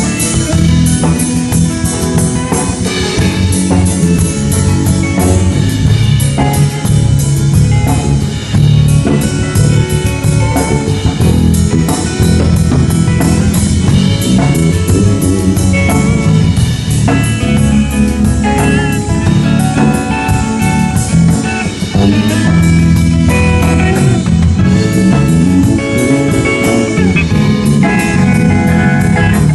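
A band sound check: a drum kit played through a steady rock-blues groove, with guitar playing along.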